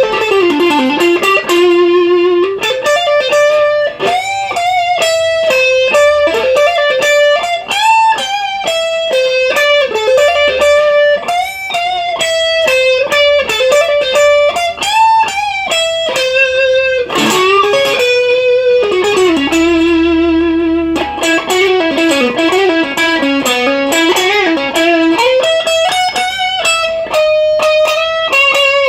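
Overdriven electric guitar played through a Marshall DSL-1 valve amp, picking a single-note lead melody with slides, bends and wide vibrato on held notes.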